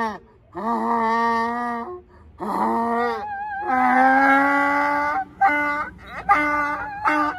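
A donkey braying: a run of long, drawn-out calls, then shorter, quicker ones near the end, with a woman singing along to it.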